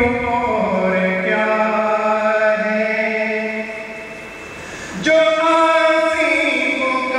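Naat recitation: a voice sings devotional verse in long, held melodic phrases. One phrase fades about four seconds in, and a new phrase starts strongly about a second later.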